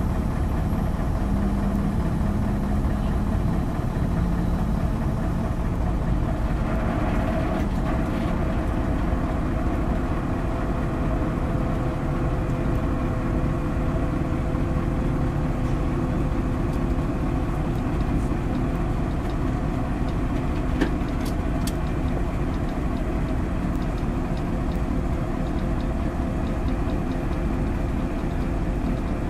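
Diesel engine of a Mitsubishi Fuso self-loader truck idling steadily, with a few light clicks about two-thirds of the way through.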